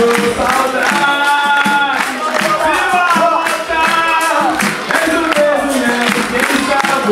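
Capoeira roda music: group singing over berimbaus, pandeiros and an atabaque drum, with steady hand-clapping about twice a second.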